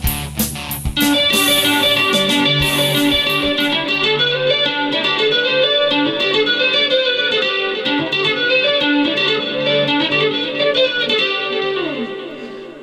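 Electric guitar: about a second of rhythmic chord strikes, then fast tapped runs of notes climbing and falling, fading out near the end.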